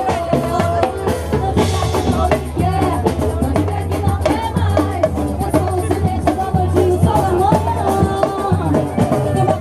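Batucada samba percussion group playing live: deep bass drums carrying a steady beat under dense, rapid snare and rim strikes.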